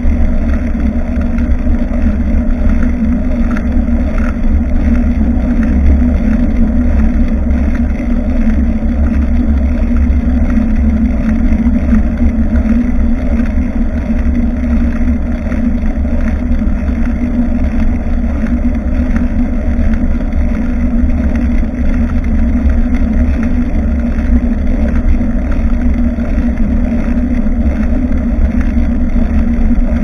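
Steady rumble of wind buffeting a bicycle-mounted action camera's microphone, mixed with tyre and road noise from riding.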